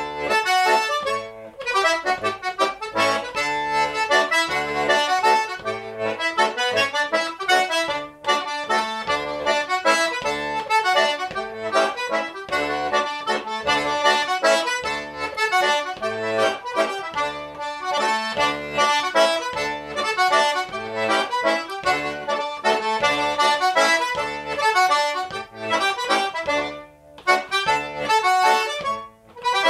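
Diatonic button accordion playing a lively traditional mazurka solo, the melody over a regular pulse of bass buttons.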